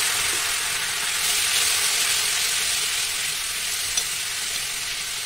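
Hot oil with turmeric and a splash of water sizzling and spitting hard in a steel kadhai, slowly dying down. A light clink of a slotted spoon about four seconds in.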